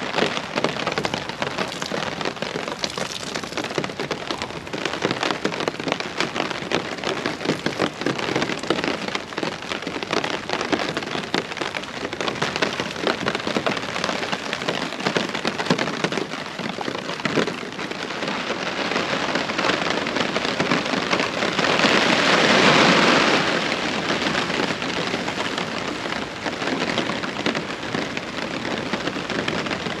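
Steady rain pattering on a hammock tarp overhead, with many fine drop hits. Past the middle, a louder rush lasts about two seconds.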